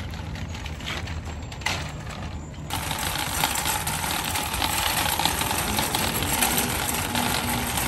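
Metal shopping cart rolling across wet asphalt, its wheels and wire basket rattling steadily; the rattle grows louder about three seconds in.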